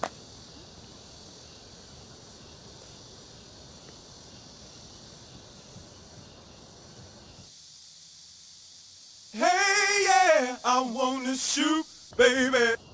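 Faint steady hiss, then, after a short silence, a voice in loud, drawn-out, wavering sung phrases, with one more short phrase near the end.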